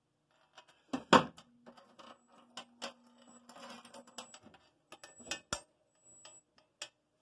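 Clicking and clattering of hard objects being handled, with a loud knock about a second in and a scatter of sharper clicks after it.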